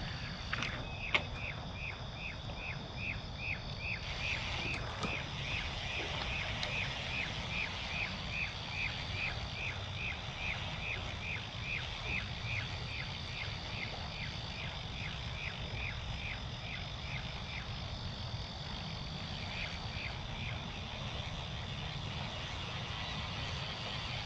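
An animal repeating a short high note over and over, about two and a half times a second, stopping a few seconds before the end. Under it runs a steady high-pitched hum of two even tones, with one sharp click about a second in.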